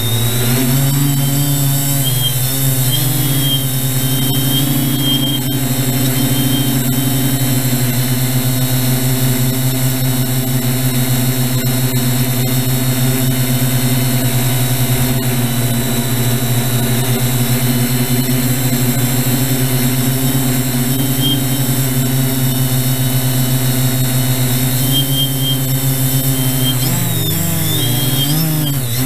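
Electric motors and propellers of a TBS Discovery clone quadcopter, heard from its onboard camera in flight: a loud, steady propeller hum with a high motor whine. The pitch wavers up and down about a second in and again near the end as the throttle changes.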